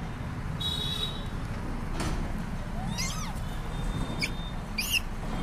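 Rhesus macaque calls: one short rise-and-fall call about three seconds in, then two sharp high squeaks near the end.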